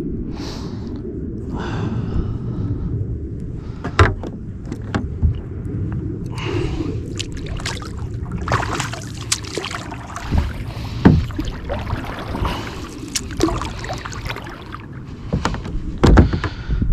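Knocks and water noises from a kayak being moved and handled on the water. A steady low wind rumble sits on the microphone, with a few sharp knocks against the hull.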